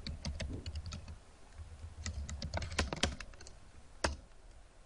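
Computer keyboard typing: quick, irregular keystrokes through the first three seconds or so, then a single louder keystroke about four seconds in.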